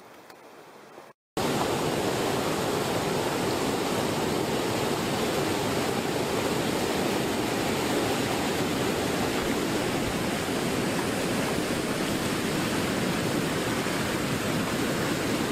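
Small river waterfall rushing, a steady, even sound of falling water that starts abruptly about a second in.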